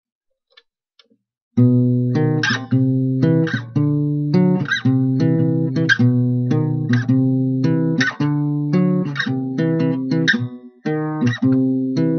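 Guitar strummed in a steady rhythm, chords ringing with a strong stroke about once a second, starting about a second and a half in.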